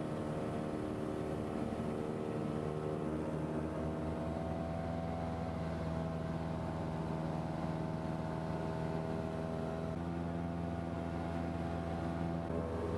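Cessna 172 Skyhawk's piston engine and propeller droning steadily, heard from inside the cockpit. The pitch of the drone steps slightly a few times.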